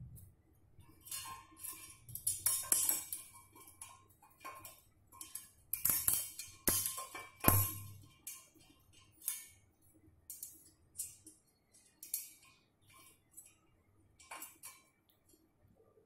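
Small metal parts clinking and scraping in the hands as a sheet-metal motor clamp, its screw and a 12 V DC motor are fitted together. The sounds come in irregular bursts, with a short ring after some of them and two sharper clicks about halfway through.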